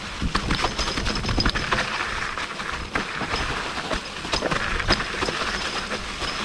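Mountain bike rattling over a rough dirt trail: tyres rolling over dry leaves and packed earth, with many sharp knocks and clatters from the bike as it hits bumps.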